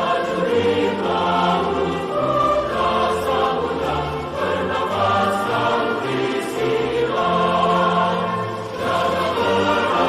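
Background choral music: a choir singing long held chords over a sustained bass line.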